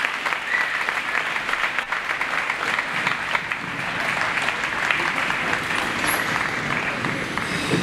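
Audience applauding, a dense steady clapping of many hands that begins to die down near the end.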